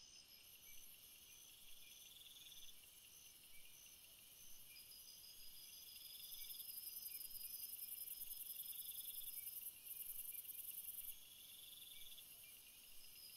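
Faint, high-pitched insect chirping of the cricket kind: trills of about two seconds repeating over evenly spaced short pulses, with a shriller pulsing layer louder through the middle.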